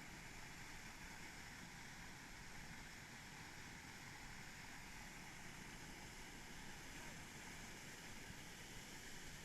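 Faint, steady rushing of a mountain creek's flowing water, unbroken throughout.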